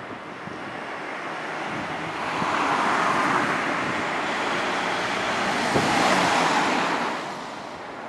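A road vehicle passing by: a rushing noise that builds about two seconds in, holds for a few seconds and fades away near the end.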